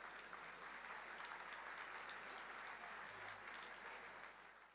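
A large audience in a big hall applauding, fading out near the end.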